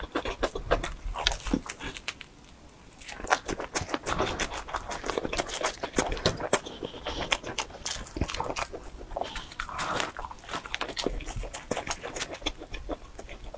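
Close-miked chewing and wet lip-smacking of someone eating a slice of pizza, as a quick, irregular patter of small mouth clicks. The chewing eases off briefly about two seconds in.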